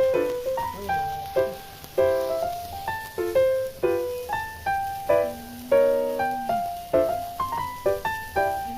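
Piano music: a melody of struck notes and chords, each ringing and fading before the next.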